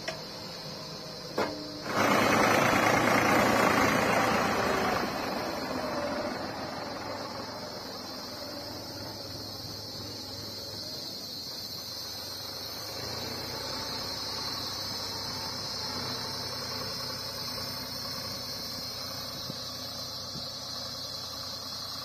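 Diesel engines of a JCB 3DX backhoe loader and a farm tractor running. A loud rush of noise swells about two seconds in and dies away by about six seconds. After that comes a steadier engine drone as the tractor hauls the loaded soil trolley away, with a steady high whine over it throughout.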